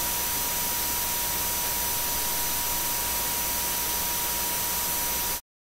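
Behringer X32 mic preamp self-noise, its input terminated with a 150 ohm resistor and boosted by 80 dB: a steady hiss, brighter toward the top, with thin steady high-pitched whine tones, a fainter mid-pitched tone and a faint low hum. It cuts off suddenly near the end.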